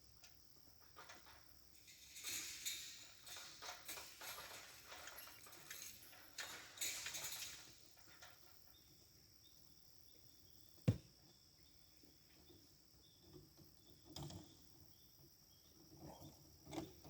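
Faint scattered rustling for several seconds, then a single sharp click about eleven seconds in, and a few soft low thuds near the end.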